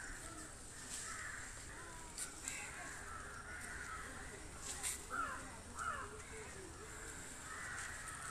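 Crows cawing outdoors, two calls louder than the rest about five and six seconds in, over a steady background of bird chatter, with a few short clicks.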